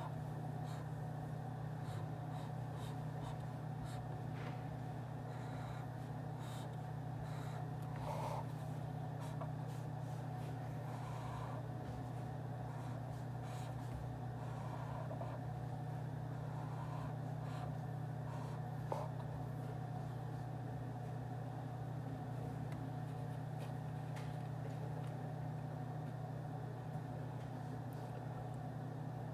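Office ambience: a steady low hum with scattered faint clicks and taps.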